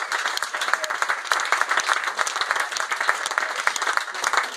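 Audience clapping and applauding at the end of a song, a dense patter of many hands.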